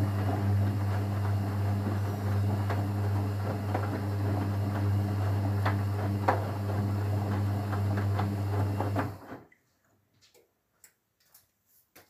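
Whirlpool FL 5065 front-loading washing machine tumbling its drum during a rinse: a steady motor hum with water and laundry sloshing in the drum. The drum stops suddenly about nine seconds in.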